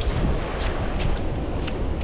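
Wind buffeting the microphone, a steady, uneven rumble, over the soft wash of small waves lapping at the shoreline.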